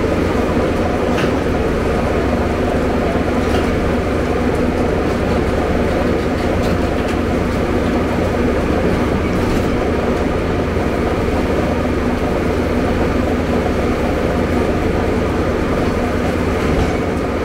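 Hyundai Robex 290LC excavator's diesel engine running steadily and loud under working load as the machine digs and swings its boom, with a few faint clicks.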